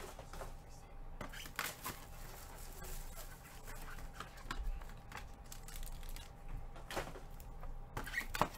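Trading cards and their packaging being handled: scattered light clicks, taps and rustling, with a sharper tap shortly before the end.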